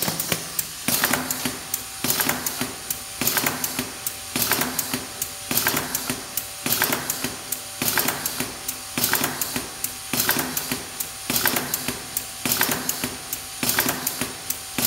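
Two pneumatic cylinders on a Bosch Rexroth trainer cycling nonstop through an A+ B+ B− A− sequence under pilot-operated valves: a clack of a piston or valve switching, with a short hiss of exhausting air, about once a second.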